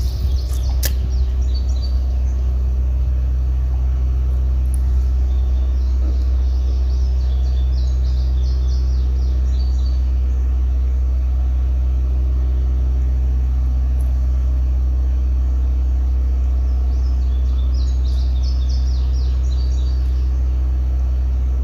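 A steady low rumble, like a motor running, goes on throughout. Over it come bird chirps twice, about six seconds in and again near the end.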